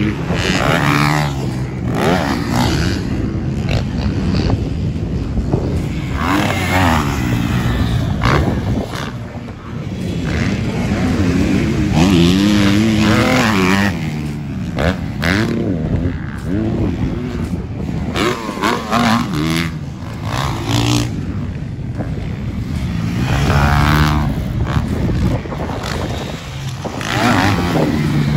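Motocross bike engines revving hard, the pitch rising and falling again and again.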